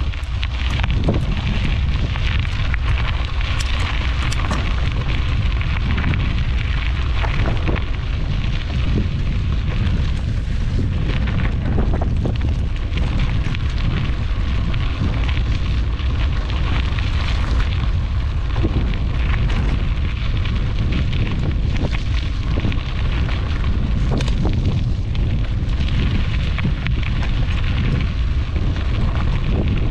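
Strong wind buffeting the microphone in a continuous low rumble, with crackling from bicycle tyres rolling over a dirt and gravel track.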